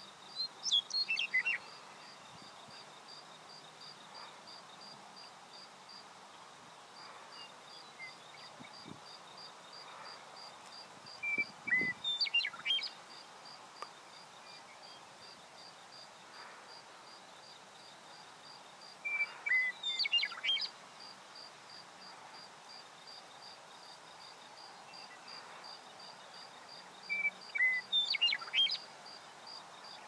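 Western meadowlark singing: four short song phrases of sweeping notes, each about a second and a half long, about eight seconds apart. A steady, rapidly pulsing insect trill runs behind.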